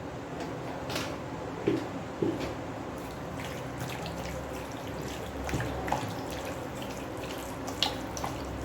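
Wet squelching and light clicks of a spoon stirring salt into boneless chicken pieces coated in wet masala paste in a bowl, with a few sharper knocks against the bowl.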